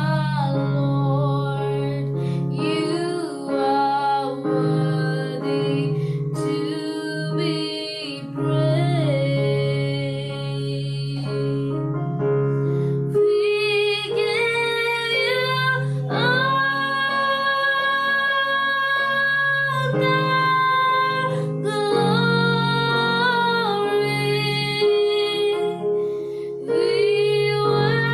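A woman singing a slow worship song over a steady instrumental accompaniment, holding one long note a little past halfway through.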